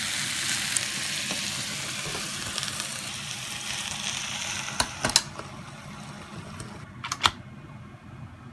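Noodles sizzling as they fry in a hot sandwich maker, a steady hiss that grows quieter from about five seconds in. Two pairs of short, sharp clacks cut through it, one about five seconds in and one just after seven seconds.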